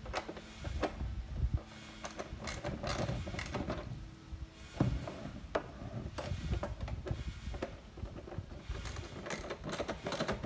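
Ratchet wrench clicking in short irregular runs, with a few louder knocks, as the bolts clamping the two plastic halves of a rotating dock bumper are tightened.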